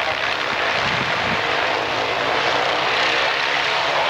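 Vought F4U Corsair's radial piston engine running steadily as the fighter taxis with its propeller turning.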